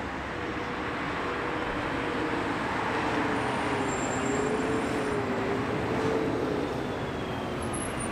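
Road traffic driving past: steady tyre and engine noise from cars, with a city bus going by in the middle, its engine hum louder and wavering in pitch as it passes.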